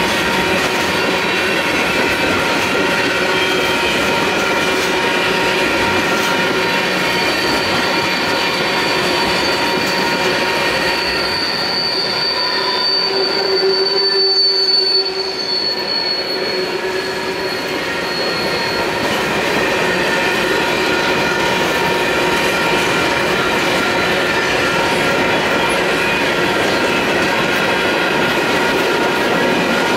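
Union Pacific manifest freight cars rolling past over the crossing with clickety-clack, a high steel wheel squeal swelling and fading in the middle. Crossing bells ring throughout: a WCH Type 1 electronic bell and a slightly scratchy Type 3 signal bell.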